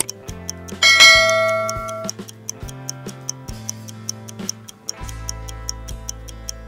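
Countdown-timer sound effect: quick, even clock ticking over light background music, with a bright bell-like chime ringing out about a second in.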